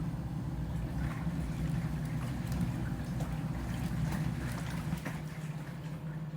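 Portable washing machine running its wash cycle: a steady low motor hum as the agitator churns the water-filled tub.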